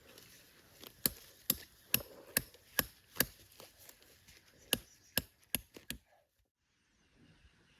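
Repeated sharp strikes of a tool on a hard surface, about two a second, in two runs of five or six with a short pause between; they stop about six seconds in.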